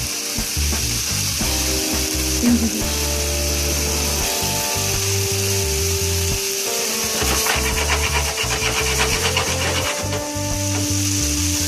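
Ackee and saltfish sizzling steadily in a frying pan, under background music with held notes and a bass line that changes every second or so.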